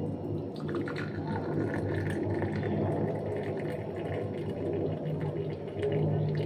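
Milk tea (chai) poured from a steel saucepan through a plastic tea strainer into a mug: a steady trickle of liquid, over a low steady hum.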